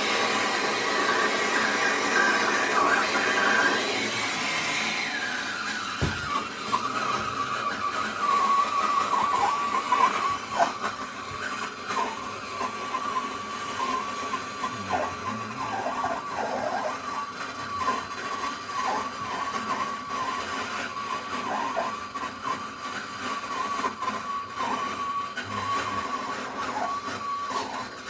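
Gas torch flame burning steadily as it heats a copper pipe joint for soldering. It starts as a broad hiss, then settles after about five seconds into a quieter hiss with a steady whistling tone.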